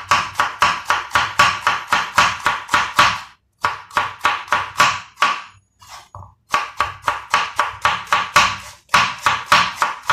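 Chef's knife slicing a red onion thinly on a wooden cutting board: rapid, even knife strokes against the board at about five a second, pausing briefly twice.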